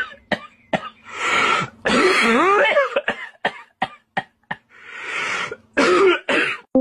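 A person coughing and clearing their throat repeatedly, in a string of short sharp coughs and longer rasping ones. The loudest coughs come near the end.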